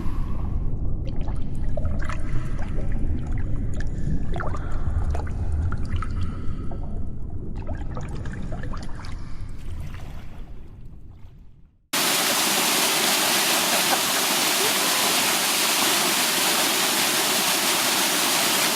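Low rumbling noise with scattered clicks that fades away, then after an abrupt cut a loud, steady rush of mountain stream water pouring over rocks.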